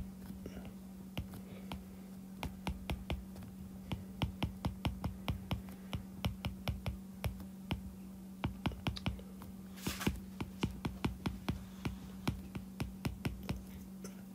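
Stylus tip tapping and clicking on an iPad's glass screen during handwriting, a quick run of sharp ticks, several a second.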